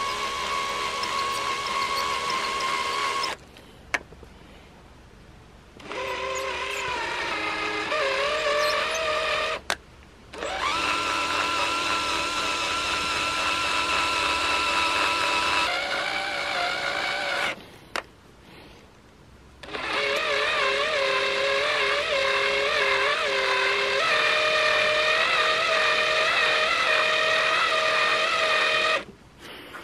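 Cordless drill motor running a screw extractor bit in reverse, a whine that shifts pitch from run to run and wavers as the bit loads up. The drill stops three times for a second or two. The extractor is biting into the stripped screw head and backing the screw out of the wood.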